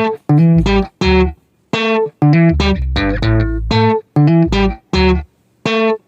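Background music: plucked guitar with bass, in short rhythmic bursts broken by brief gaps.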